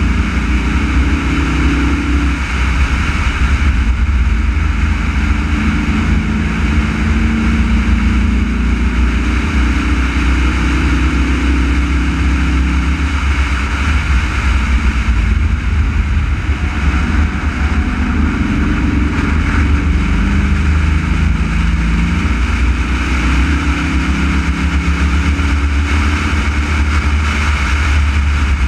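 Race car's engine running hard at speed, its pitch climbing and dropping several times as the car accelerates and eases off, over a heavy low rumble of road and wind noise.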